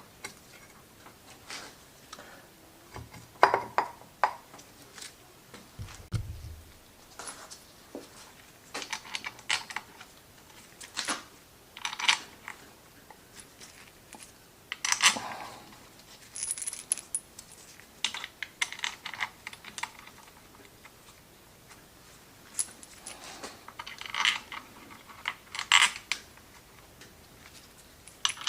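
Small metal engine parts and hand tools clinking and clicking irregularly as they are handled, with a low thud about six seconds in.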